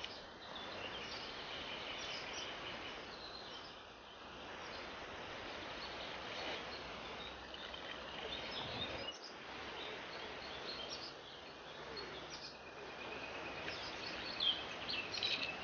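Songbirds chirping and singing over a faint steady outdoor hiss, the chirps coming thicker near the end.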